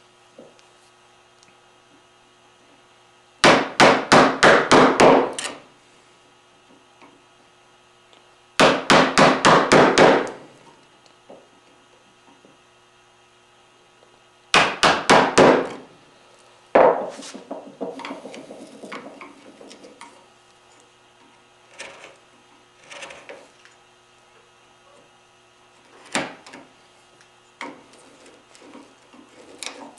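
Chisel being driven into maple with mallet blows, chopping out dovetail-socket waste: three quick runs of about five to seven sharp strikes each, then one single strike. After that come quieter scraping and light taps as the chisel levers and pares out the chips.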